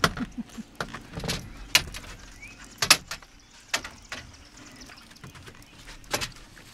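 A string of irregular sharp knocks and clatters, about eight in all, the loudest about three seconds in, over a faint steady hiss.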